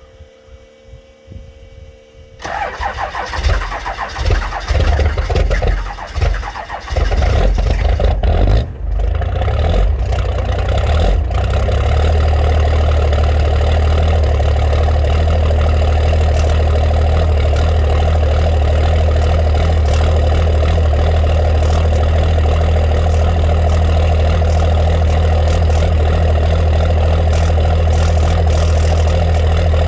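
Cold start of a 12-valve Cummins inline-six diesel with its injection timing advanced to 32 degrees, at −6 °C. It fires about two seconds in, runs rough and uneven for several seconds, then settles into a steady idle from about twelve seconds on.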